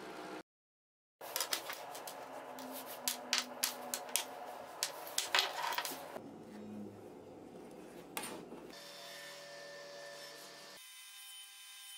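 Woodworking handling sounds cut together: rubbing and scraping on plywood with a run of sharp clicks and knocks of small wooden and metal pieces, broken by a short dead-silent gap near the start and changing abruptly at several edits.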